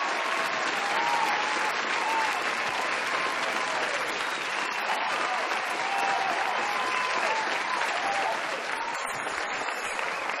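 Small audience applauding at the end of a live band's song, steady clapping with voices over it.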